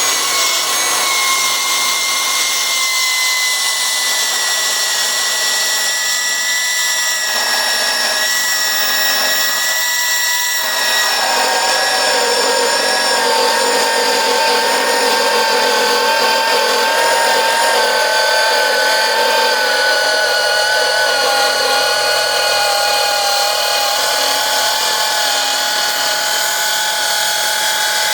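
Milwaukee M18 8-inch cordless metal-cutting circular saw running under load through 1-inch steel plate: a steady high whine whose pitch sags slowly as the blade bites. About ten seconds in, a harsher grinding rasp joins it.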